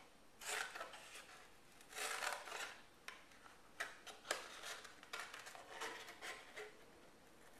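Scissors cutting thin cereal-box cardboard: an irregular series of short snips, with the card rustling as it is turned between cuts.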